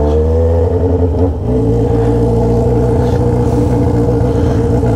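Yamaha XJ6's 600 cc inline-four engine, exhausting through a bare 3-inch 4-into-1 pipe with no muffler, pulling away while ridden. The pitch rises for the first second, breaks briefly, then settles into steady revs.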